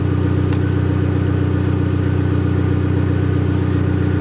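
Fiat Bravo T-Jet's 1.4 turbo four-cylinder idling steadily through an exhaust with the final muffler removed, giving a deep note.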